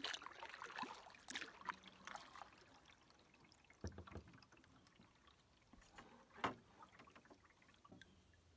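Faint canoe paddle strokes on calm water: the paddle dipping in with soft splashes and drips, and scattered light clicks. The loudest splash comes about six and a half seconds in.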